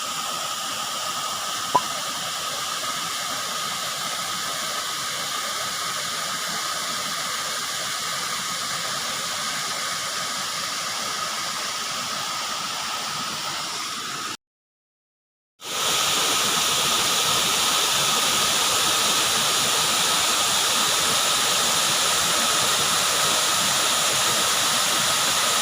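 Waterfall rushing: a steady, hissing rush of falling water. It cuts out for about a second midway and comes back louder.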